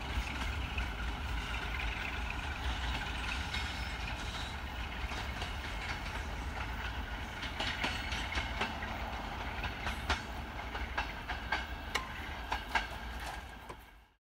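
Passenger train pulling away over station tracks: a steady low rumble, with irregular clicking clatter from the wheels over rail joints and points in the second half. It fades out quickly near the end.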